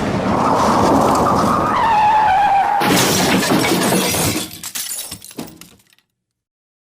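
Car crash sound effect: a tyre screech that slides down in pitch, then about three seconds in a sudden loud impact with glass shattering. Pieces clatter and tinkle for a couple of seconds before it cuts to silence.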